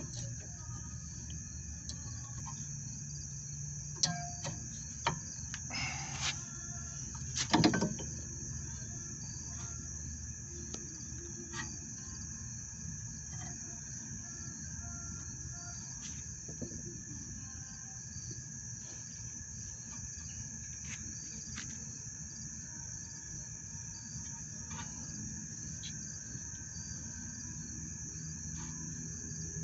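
Steady high-pitched insect chorus, with a few short clicks and knocks between about four and eight seconds in, the loudest near eight seconds.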